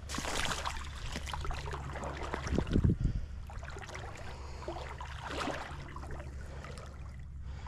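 Shallow water sloshing and splashing around the legs of someone wading across a flat, coming in irregular surges with the biggest splash about three seconds in, over a steady low rumble.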